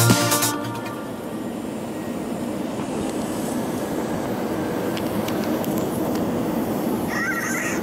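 Background music cuts off about half a second in, leaving the steady rumble and hiss of an Airbus A320's cabin, which grows slightly louder. A brief higher tone comes near the end.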